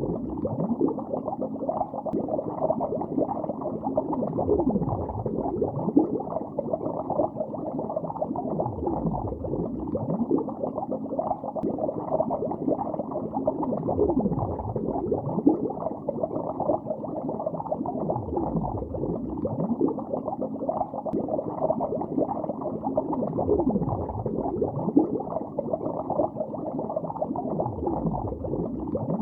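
Continuous bubbling heard underwater in a lake, dull and muffled, with dense overlapping small pops and a swooping gurgle every few seconds.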